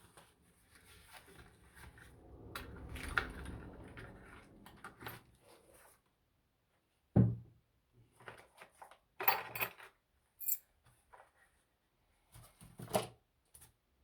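Handling a padlock and its packaging: a few seconds of soft rustling, then a single thump about seven seconds in, followed by several sharp clicks and knocks.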